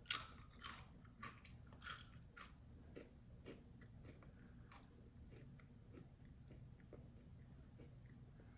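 Close-up crunching and chewing of garlic aioli chips: sharp crunches about every half second for the first couple of seconds, then fainter chewing that fades away.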